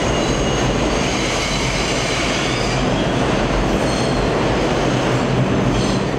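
New York City subway train pulling into a station and slowing to a stop: a loud, steady rumble with a thin, high squeal of wheels on rail.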